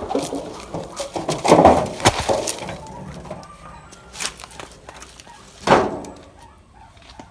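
Knocks, scrapes and rustling on dry leaves as a heavy section of tree stump is tipped off a wheelbarrow and set upright. The loudest knocks come about two seconds in, and there is another sharp burst of noise near the end as the wheelbarrow is moved off.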